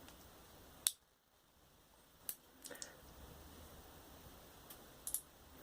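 A few sharp clicks from a Victorinox Swiss Tool multitool being handled as its fold-out tools are opened and moved: one about a second in, a small cluster between two and three seconds in, and a pair near the end.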